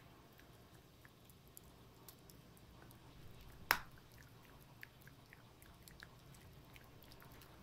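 Shih-poo puppy gnawing a chew stick: faint, scattered clicks and crunches of its teeth on the chew, with one sharper, louder crack a little past the middle.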